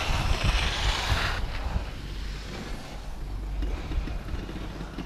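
Wind blowing across the microphone on an open chairlift: a steady low rumble, with a louder hiss for about the first second and a half before it settles.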